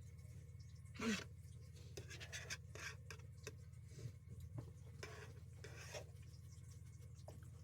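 Soft rubbing and rustling sounds with a few light clicks, the loudest scrape about a second in, over a steady low hum.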